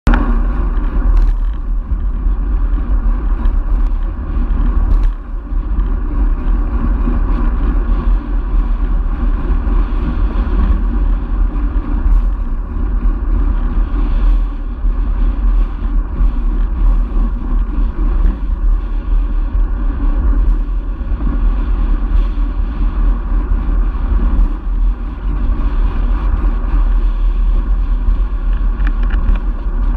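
Wind buffeting the microphone of a camera mounted on a moving road bicycle, a steady deep rumble, with tyre and road noise underneath and a few sharp knocks.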